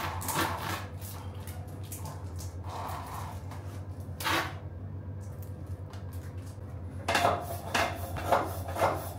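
Handling noises as a tubular tire is worked onto a carbon rim and the plastic backing film is pulled off the gluing tape: scattered rustles and rubs, with a cluster of four louder strokes near the end.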